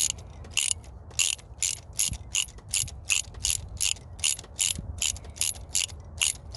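Hand ratchet on a 5/8 spark plug socket clicking in quick back-and-forth strokes, about three clicks a second, as a spark plug is unscrewed from the engine.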